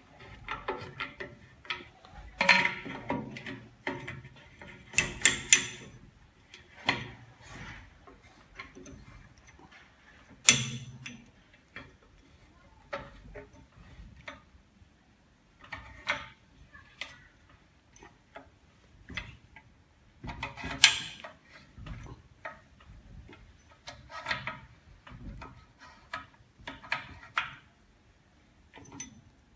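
Clamping handles on an LCD-refurbishing autoclave's door being turned and tightened one by one: irregular clicks and metal knocks, loudest in clusters about 2, 5, 10 and 21 seconds in.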